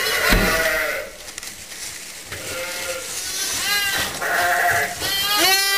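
Lambs bleating: several calls in turn, with a long bleat starting near the end.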